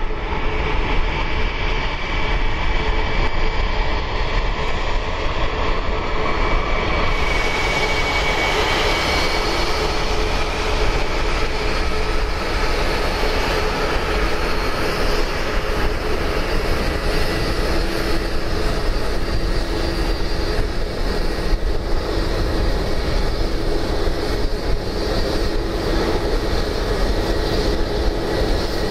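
Airbus A321-231's twin IAE V2500 turbofan engines running at low taxi power as the airliner taxis close by: a steady jet whine and rumble with several held tones, the high hiss growing brighter about seven seconds in.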